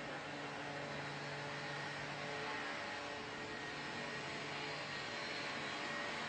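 Steady whirring background noise with a faint hum; a low part of the hum drops away about two and a half seconds in.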